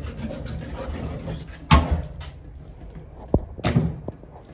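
Two sharp knocks about two seconds apart, from things being handled on a stainless steel sink and drainboard, with a fainter tap between them.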